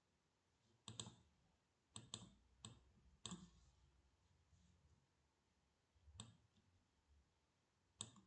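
Faint, scattered computer mouse clicks: a quick run of about five in the first few seconds, then two more spaced out near the end.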